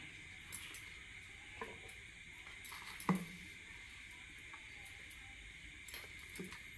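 Sweet corn vadas deep-frying in hot oil on a low flame: a steady soft sizzle with scattered small crackles. A few light knocks, about four across the stretch, the clearest about three seconds in.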